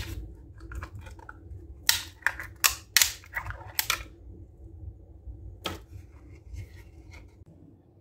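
Sharp plastic clicks and cracks from a black 3D-printed charging-base housing being twisted and worked by hand: about half a dozen snaps in the middle and one more a little later, over a low steady hum.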